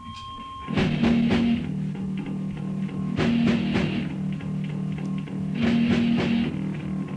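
Punk rock band coming in just under a second in, after a brief lull: distorted electric guitar chords over a drum kit, with a riff whose loud chords come back about every two and a half seconds.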